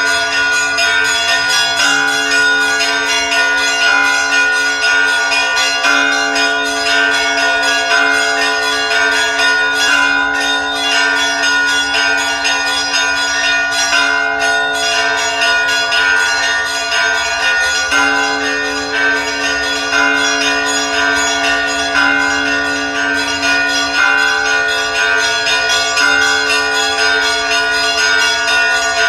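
Church bells ringing in a continuous peal, several bells struck again and again so that their tones overlap and keep sounding.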